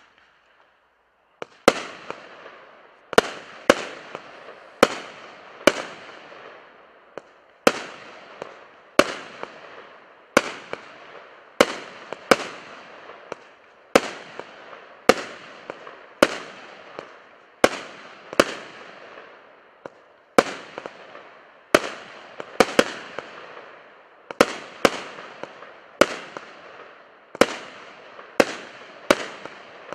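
Compound firework cake firing aerial shots one after another: a sharp bang roughly every second, starting about a second and a half in, each trailing off in a fading crackle as the stars burst.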